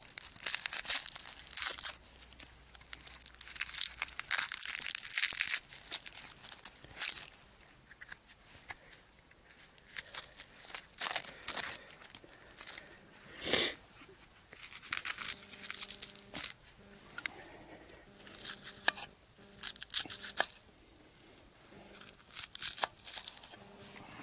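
A shallot being peeled and cut with a knife: the dry, papery skin tearing and crinkling as it is scraped off, then short irregular knife strokes as it is sliced.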